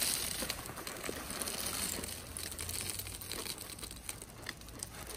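Ice cubes pouring into a plastic kiddie pool, clattering and crunching as they land on the pile and on the dogs, then fading to scattered clicks as the pour tapers off.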